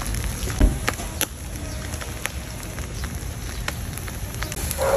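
Charcoal fire crackling under a wire grill: a steady hiss with scattered sharp pops, and one dull thump about half a second in.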